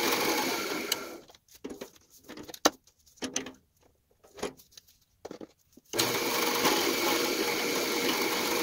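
A drill press running a half-inch Forstner bit at 730 RPM, boring into mahogany. The steady running stops about a second in, leaving a few scattered light knocks, then starts again about six seconds in for the next hole.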